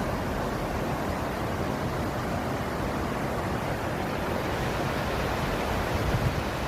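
Steady rush of flowing water, a stream or small waterfall running in full flow.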